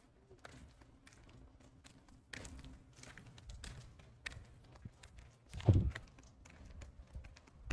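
Footsteps of people walking, with scattered light taps and one louder low thump a little past halfway.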